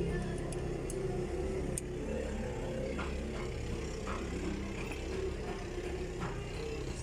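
A vehicle engine running steadily as a low rumble, with a few faint knocks.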